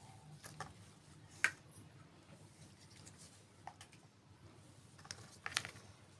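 Small plastic toy kitchen pieces clicking and tapping as they are handled, in a few separate light clicks. The sharpest comes about one and a half seconds in, and a quick cluster follows near the end.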